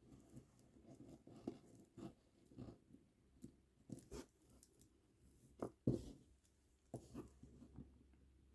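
Faint, scattered clicks and rustles of plastic kandi beads and string being handled, about ten small taps, the loudest about six seconds in.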